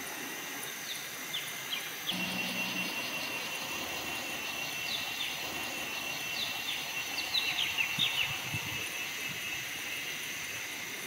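Forest ambience of insects and birds: a steady high insect drone, with a long shrill trill from about two seconds in until about eight seconds, and short downward chirps of small birds scattered over it, thickest near the end.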